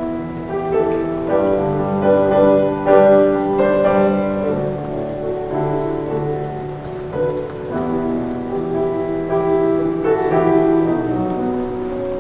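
Grand piano playing a song of held chords, the introduction or accompaniment to a congregational song.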